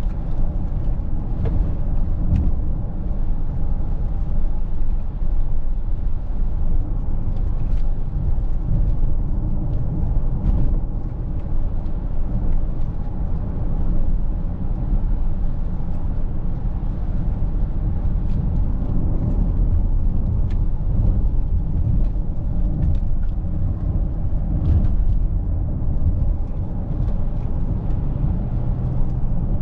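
Steady low rumble of tyre, road and wind noise from a Mercedes-Benz GLC 300de 4Matic driving along, with faint scattered ticks.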